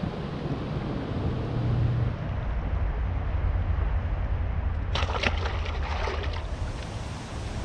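Wind buffeting the microphone as a steady low rumble, with a short burst of rattling clicks about five seconds in.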